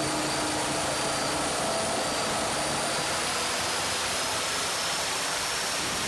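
Turbocharged 6.0-litre LS V8 with a BorgWarner S480 turbo running on an engine dyno through a 3.0-inch downpipe and muffler: a steady rushing exhaust-and-intake noise with a faint high turbo whistle slowly rising in pitch.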